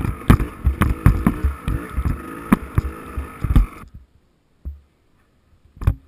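Dirt bike riding over rough ground, with irregular knocks and thumps over engine and ride noise. About four seconds in, the sound drops away suddenly to near silence, and thumps come back near the end.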